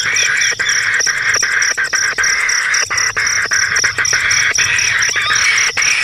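Outdoor chorus of birds chirping, over a steady high-pitched pulsing insect drone.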